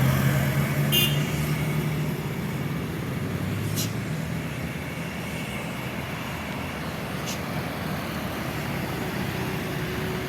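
Heavy road vehicle's engine drone going past, loudest in the first two seconds and then fading into steady road-traffic noise.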